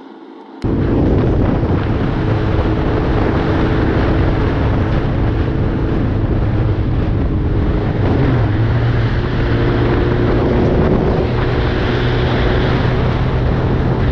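Motorcycle riding at highway speed: loud wind rushing over the microphone with the engine's steady hum beneath it. It cuts in abruptly about half a second in.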